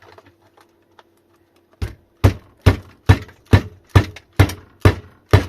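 A run of nine hard knocks, about two a second, starting about two seconds in: a tool being struck to drive the cell block out of the battery pack's case, which stays stuck.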